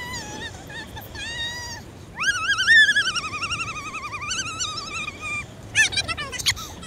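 High-pitched, warbling human squeals. About two seconds in comes one long wavering cry that jumps up and then slowly falls, followed by a few short chirps near the end.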